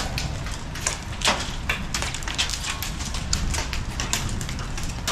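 Marble-sized hailstones pelting the garage roof in irregular sharp ticks and knocks, several a second, over a steady low rumble of the storm.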